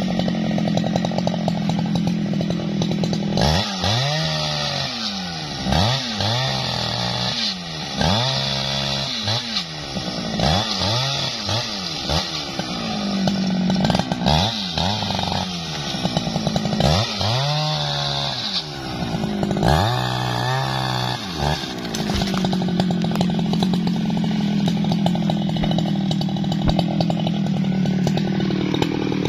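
Two-stroke Jonsered chainsaw idling, then revved to full throttle in about ten repeated bursts as it cuts into a felled tree trunk, the engine note dropping back between bursts. A few seconds before the end it settles back to a steady idle.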